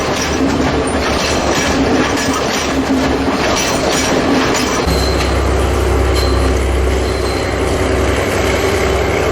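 Train running on the rails with clatter and wheel noise. About five seconds in, a steady deep engine drone comes in and takes over.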